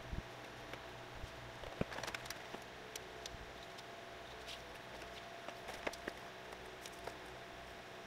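An engine wiring harness and its black plastic sheathing being handled: irregular light clicks and rustles of wire and plastic over a steady faint hum, busiest about two seconds in and again near six seconds.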